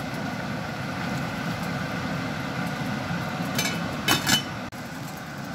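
Stainless-steel pot boiling on high heat, a steady rushing bubbling noise. About three and a half seconds in, the metal lid goes down onto the pot with a few light clinks.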